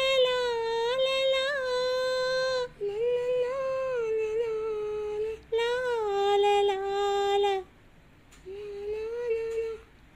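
A boy's voice singing a slow melody in long held notes, in four phrases with short breaks, the longest break just before the last phrase.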